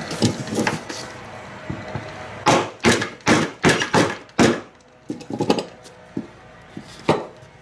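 Wooden knocking as a glued dowel axle and wooden wheel are tapped together: about six sharp knocks at roughly two to three a second, then a few lighter taps.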